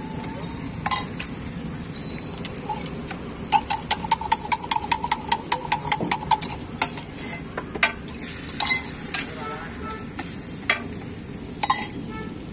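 A spoon beating eggs in a steel mug: a quick run of ringing metallic clinks lasting about three seconds, with scattered single sharp taps before and after. A griddle sizzles steadily underneath.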